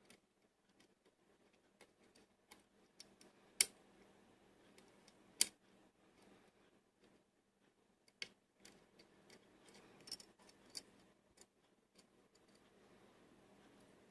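Lock pick working the pins of a six-pin GeGe pin-tumbler lock cylinder under tension: faint, irregular small metallic clicks and scrapes, with two sharper clicks a few seconds in.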